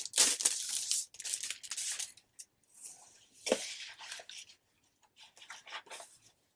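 Packaging and paper rustling and tearing in irregular bursts as a scrapbook paper pad is unwrapped by hand, with one sharper knock about halfway through.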